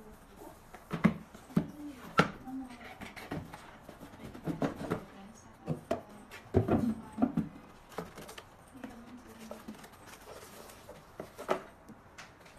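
Cardboard speaker box and its packaging handled on a tabletop during unboxing: the lid lifted off, the box knocked and set down, and a fabric carrying strap pulled out, giving a string of scattered knocks, taps and rustles. The sharpest knocks come in the first couple of seconds and again about halfway through.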